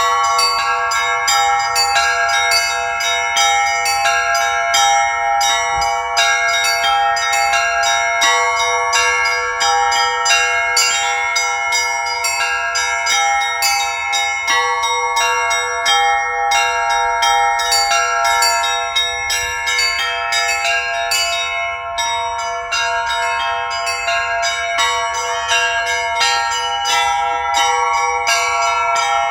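A set of bells of several pitches rung by hand in a quick, continuous peal, several strikes a second, with the tones overlapping and ringing on.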